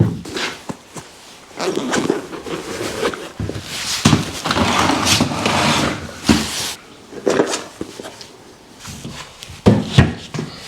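A hand tool scraping and chipping away wall plaster, with sharp knocks and longer rasping strokes. The plaster is stuck fast in places, which the electrician puts down to adhesive dabs behind it.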